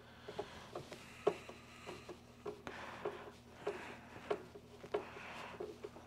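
A screwdriver working a Torx T25 screw in the vacuum's plastic housing: faint, small clicks about three a second with light scraping between them.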